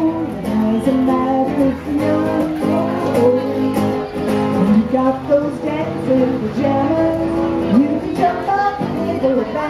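Upbeat children's dance song, a stretch between sung verses led by strummed acoustic guitar.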